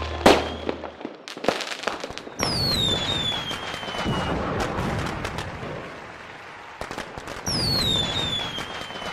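Fireworks going off: several sharp bangs and pops, then twice a whistling firework whose whistle falls in pitch, each followed by a long crackling hiss.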